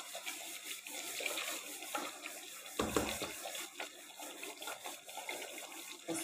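Chicken gravy with yogurt sizzling and bubbling in oil in a pan, frying down until the oil separates on top. A brief thump comes about three seconds in.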